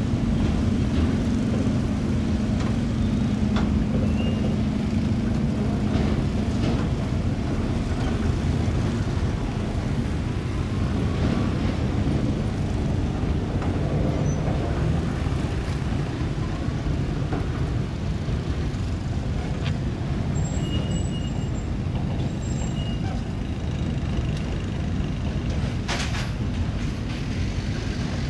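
A steady low engine rumble, with a steady hum on top that fades out about six seconds in and a brief sharp knock near the end.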